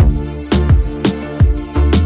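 Upbeat background music with a steady beat of deep drum hits.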